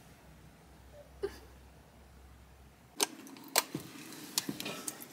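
A few sharp clicks and light knocks, among them a wall light switch being pressed. Before them a low hum runs and stops abruptly about three seconds in.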